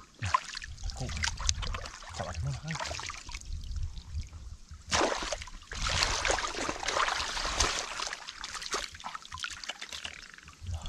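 Hands splashing and churning shallow muddy water while grabbing for a catfish, in irregular bursts, with the heaviest splashing starting about five seconds in and lasting a few seconds.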